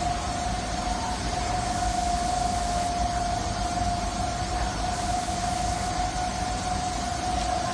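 Steady workshop machinery noise: a constant mid-pitched whine over an even hiss and low rumble.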